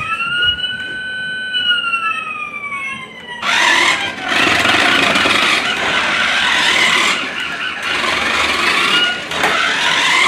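A long high squeal that rises and then slowly sinks over about three seconds. Then, from about three and a half seconds in, the steady whir of a small RC toy car's electric motor and wheels running across the floor, with a few brief dips.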